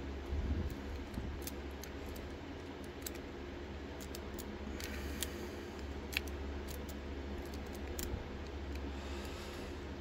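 Lock pick and tension wrench working in a lock's keyway: scattered faint metallic ticks and small scrapes as the pins are set, over a steady low hum.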